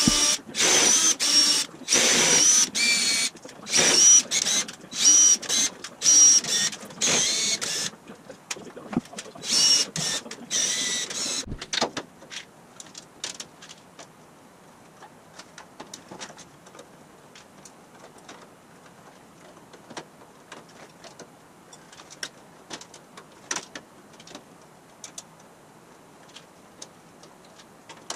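Cordless drill whirring in a string of short bursts as holes are drilled through a 1/8-inch aluminum dashboard panel, for about the first eleven seconds. After that come only faint scattered clicks and taps of small parts being fitted by hand.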